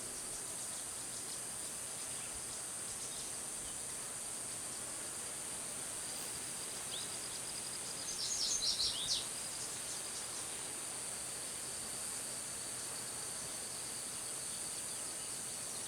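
Steady, high-pitched outdoor insect drone, with a short burst of bird chirps about eight seconds in.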